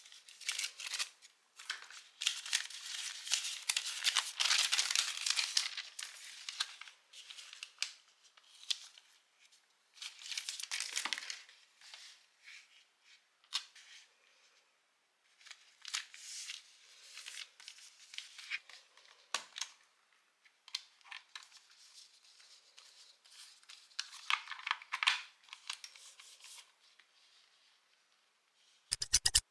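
Thermal label paper being handled: rustling, crinkling and tearing-like peeling sounds in irregular bursts as the label stock is unrolled, peeled and fed into a small thermal printer, with a short sharp clatter near the end.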